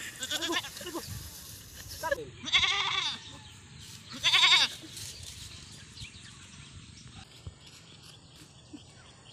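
Goat bleating: two long, wavering bleats, the first about two and a half seconds in and the second about four seconds in, with shorter calls before them.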